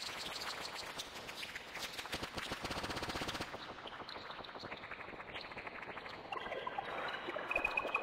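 Electronic soundtrack of dense, rapid crackling clicks. About three and a half seconds in, the highest sounds drop away and the clicks thin out, and near the end short pitched tones enter.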